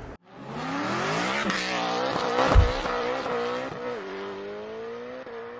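Logo intro sound effect of a race-car engine revving up in rising sweeps, with a low thump about two and a half seconds in. The engine note then holds steady and fades out.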